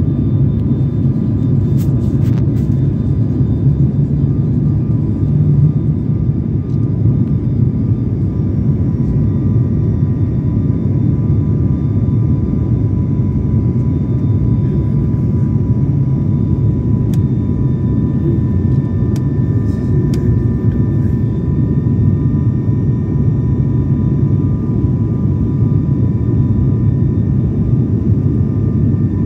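Steady engine drone heard inside an airliner's passenger cabin on its approach to land: a deep, even rumble with a few thin, steady whining tones above it.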